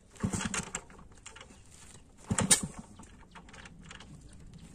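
Yamaha RX 135 two-stroke single being kick-started: two clattering kicks, about half a second in and again about two and a half seconds in, and the engine does not catch. The rider suspects the fuel tap is shut.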